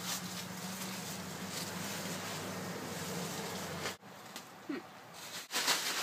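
Outdoor background with a steady low hum and hiss, which breaks off suddenly about four seconds in. A rustle of handling comes near the end.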